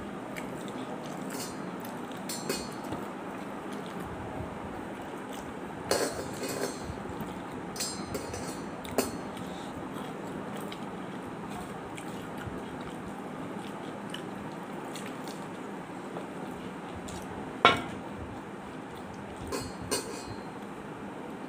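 Eating rice by hand from a plate: scattered short clinks and taps from fingers, bangles and the plate as the rice is mixed, with one sharper clink about three-quarters of the way through, over a steady background hiss.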